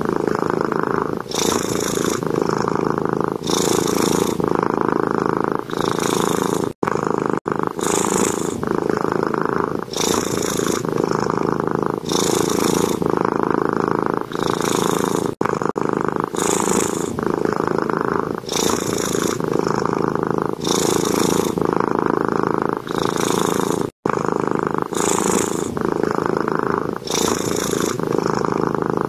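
Domestic cat purring steadily, rising and falling in a cycle of about two seconds with each breath.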